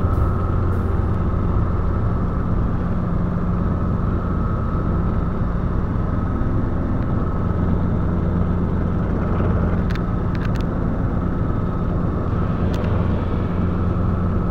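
Light training helicopter's engine and rotor running steadily, heard from inside the cabin, as it hovers low over the ground.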